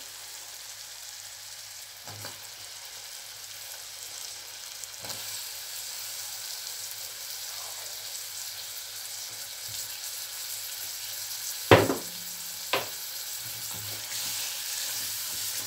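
Dried fish (shutki) sizzling as it fries in a spiced onion masala in a saucepan, a steady hiss that grows a little louder. About twelve seconds in, two sharp knocks of a spatula against the pan as the fish is stirred.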